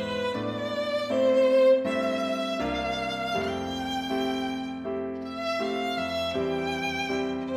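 Background instrumental music: a melody of held notes changing every second or so over sustained lower chords.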